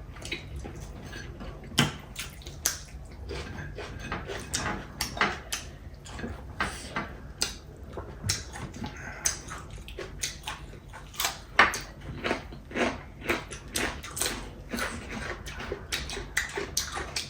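People eating chicken biryani up close: chewing, with many irregular short clicks and taps.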